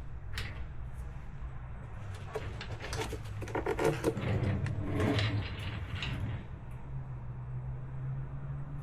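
Hands working the car's plastic airbox and air filters: a run of clicks, knocks, scrapes and rustles, busiest in the middle, over a steady low hum.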